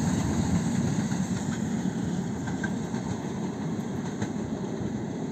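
Passenger train hauled by the Pt47 steam locomotive running on the line as it pulls away, a low rumble that slowly fades.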